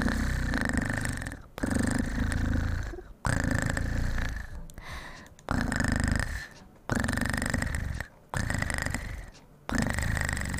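A woman imitating a cat's purr with her voice: a run of about seven rolling purrs, each about a second long, starting suddenly and fading out, with a short pause for breath between them.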